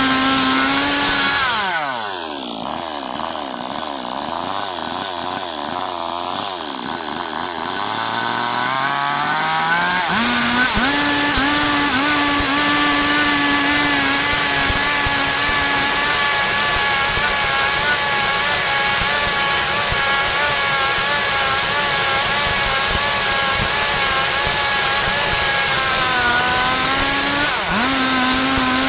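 Stihl MS 382 two-stroke chainsaw running at full throttle, sawing a log into boards. It drops to idle about a second and a half in, revs back up around ten seconds in, and then runs steadily at full throttle to the end.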